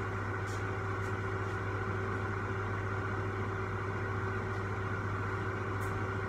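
Electric fan heater running: its fan motor whirring steadily with a low electrical hum and the rush of air through the heater. The heater's element glows red, which the repairer puts down to fluff blocking the airflow or a slow motor.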